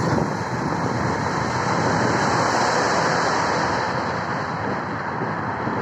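Steady rush of road and wind noise from a vehicle moving slowly through city traffic, with wind buffeting the microphone.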